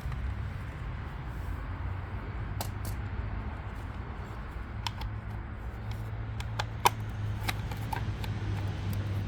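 Scattered small clicks and taps of wire connectors and tools being handled while a taillight is wired up, over a steady low hum.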